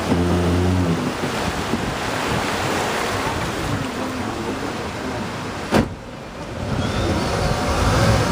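River tour boat under way: its outboard motor running, with wind and rushing water. A single sharp knock about six seconds in.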